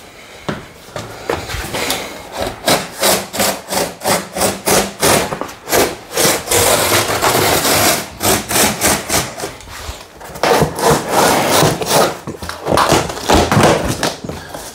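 Utility knife blade slicing through a corrugated cardboard box in short, rasping strokes, about three a second.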